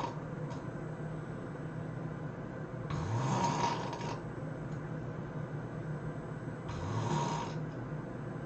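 A person snoring in deep sleep: two loud snores about four seconds apart, each breath rising in pitch. A steady low hum runs underneath.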